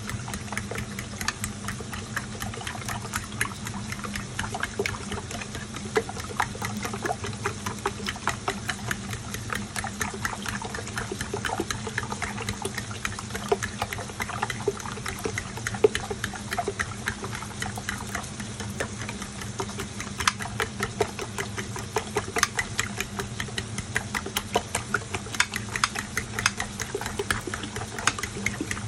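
A fork beating raw eggs in a glass baking dish: quick, irregular clicks of the fork against the glass with the wet slosh of the egg, over a steady low hum.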